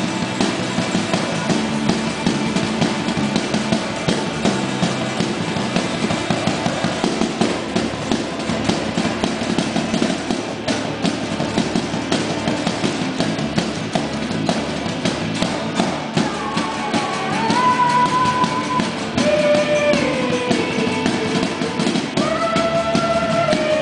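Band-style music with a steady beat. A held melody line with sliding notes comes in during the last third.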